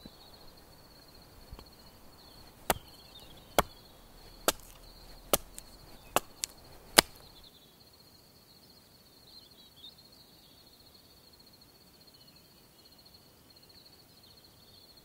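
A hatchet chopping fresh green wood on a chopping block: seven sharp strikes about a second apart, the last the loudest. After that only a faint steady high chirring remains.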